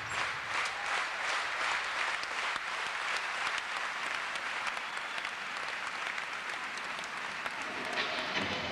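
Audience applauding, a dense steady clatter of many hands clapping. Music starts up again near the end.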